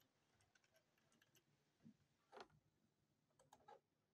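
Near silence with a few faint computer keyboard key clicks, starting about two seconds in, as text is typed.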